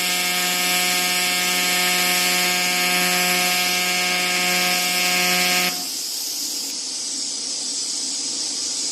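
A steady mechanical hum with a high hiss over it; the hum cuts off suddenly about six seconds in, leaving the hiss.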